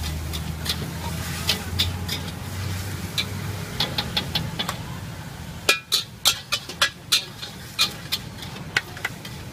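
A metal spatula clanking and scraping against a steel wok as stir-fried noodles are scooped out onto a plate, in a quick irregular run of sharp clanks that get louder and closer together about halfway through. A steady low rumble underneath cuts off at that point.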